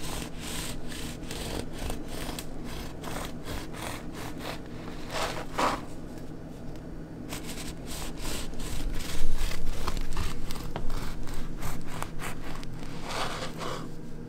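A knife sawing back and forth through a loaf of homemade whole wheat bread, a quick, steady run of strokes that grows louder about two-thirds of the way in.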